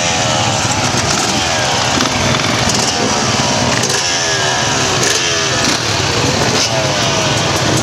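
Several motocross bikes running on a start line, their engines blipped again and again, each rev falling back in pitch.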